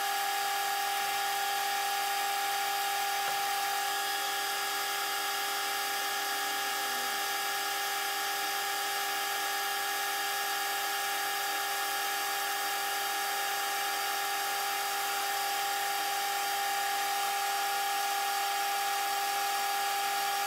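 Metal lathe running steadily while turning a metal workpiece, with a constant high whine from its drive over the hiss of the cut.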